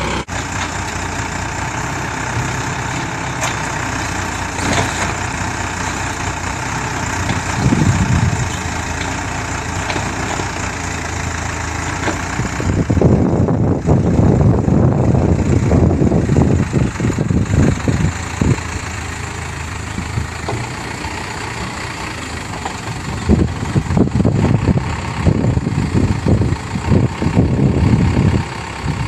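A small log-grapple excavator's engine runs steadily, then works harder from about 13 seconds in as the machine swings and lifts a bundle of logs. Its note surges and eases with each movement.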